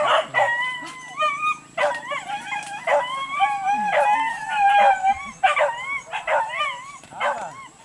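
Several boar-hunting dogs whining and yelping in overlapping, wavering high cries, some drawn out for about a second, with short sharp yaps breaking in. The longest, loudest whine comes about four to five seconds in.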